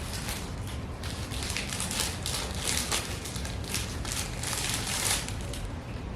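Irregular crackling, rustling noises, a quick run of uneven crinkly strokes that fades out near the end.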